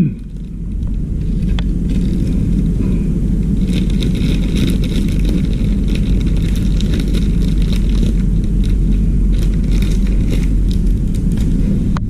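A steady low rumble, with scattered light clicks and rattles of small objects being handled among clutter.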